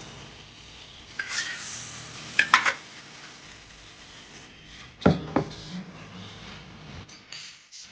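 Bowls and utensils being handled: a few short clinks and knocks in three small clusters, the heaviest a dull knock about five seconds in.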